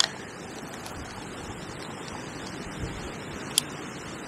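Strong, gusty wind buffeting the microphone over the rush of a river, with two sharp clicks, one right at the start and a louder one about three and a half seconds in.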